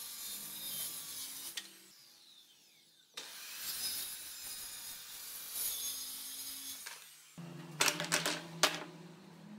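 Handheld circular saw cutting through a pine board, its whine falling away as it spins down after the cut, then cutting again. Near the end, loose wooden strips knock together a few times as they are set down on the wood.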